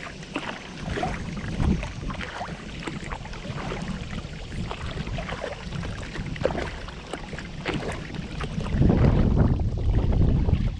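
Kayak paddling: the paddle dips and splashes, with water dripping in many short ticks. Near the end a gust of wind rumbles on the microphone and is the loudest sound.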